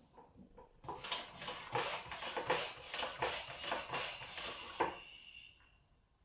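Irregular scraping and rustling handling noise, lasting about four seconds, as fingers work an insulated spade connector onto the heating-element terminal of a small electric model steam boiler.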